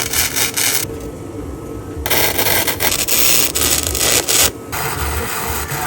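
Scraping and rubbing of a hand tool worked over a surface in uneven strokes, with a lull in the hiss about a second in.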